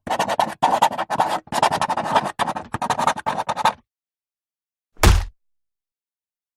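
Rapid scratchy crackling, many clicks a second, for nearly four seconds, then a single short whoosh with a low thump about five seconds in.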